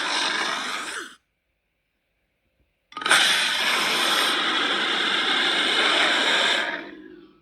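Breathy, rasping vocal sound effects of an animated monster character: one ends about a second in, and after a pause a second, longer one starts about three seconds in and fades out near the end.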